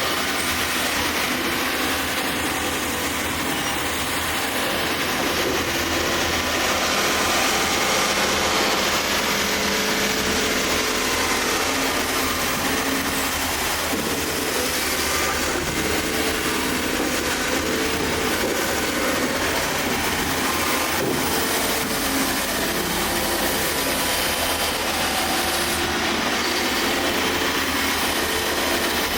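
Komatsu excavator working: a steady, unbroken mechanical noise of its diesel engine and hydraulics running under load.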